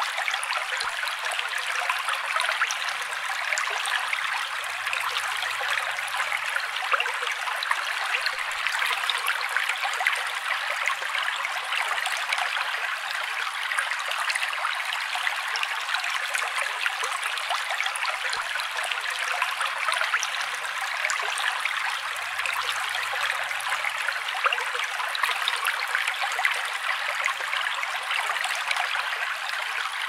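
Steady bubbling and trickling water, a dense run of tiny pops and splashes, with no deep sound under it.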